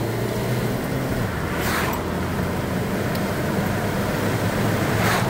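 Steady road and engine hum inside a moving car's cabin, with two brief swishes about two and five seconds in.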